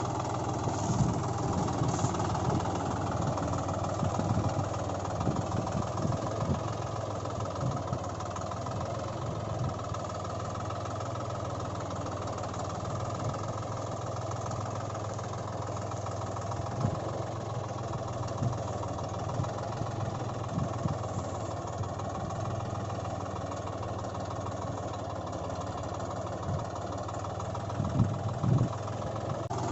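Engine of heavy machinery running steadily at idle, with scattered short knocks and a few louder ones near the end.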